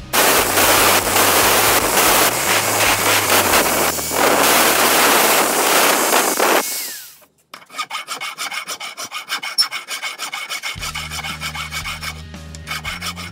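Angle grinder grinding a steel strip, loud and continuous for about six and a half seconds, then winding down with a falling whine after it is switched off. After a short pause, a flat file rasps back and forth over the steel strip clamped in a bench vise, stroke after stroke.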